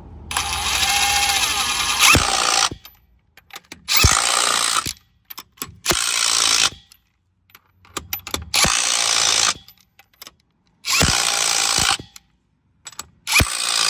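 Hart cordless impact wrench hammering in six short bursts, the first the longest at about two seconds, with brief pauses between them, as lug nuts are run on or off a wheel.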